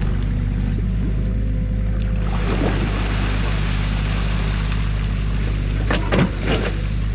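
Mini excavator's diesel engine running steadily, with water churning and splashing as the bucket stirs through the flooded stream. A few sharp knocks come about six seconds in as the bucket works at the dam.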